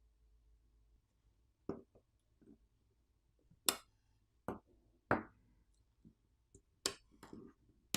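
Light, irregular clicks and taps of small metal tools and phone parts being handled during a smartphone teardown, about seven of them spaced apart.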